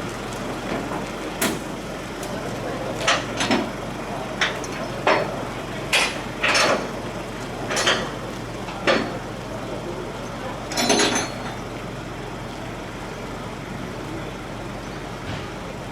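A run of sharp knocks and clanks, about ten, at irregular intervals over a steady background rumble, as heavy gear is handled; a longer clatter comes near eleven seconds and then the knocks stop.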